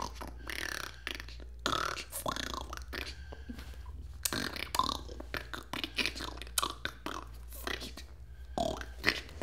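A person's voice making broken, uneven vocal sounds rather than clear words, over a steady low hum.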